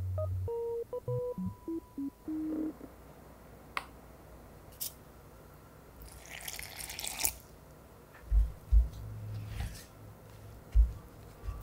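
A quick run of short electronic beeps stepping up and down in pitch at the start. About six seconds in, water is poured briefly into a bowl of dry flour mix, then a wooden spatula stirs the dough in the ceramic bowl with a few dull knocks.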